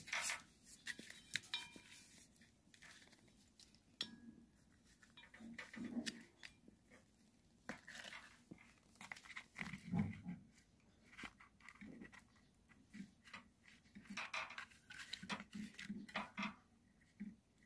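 Faint, irregular clicks, scrapes and soft knocks of hands working on small parts, with no steady motor sound.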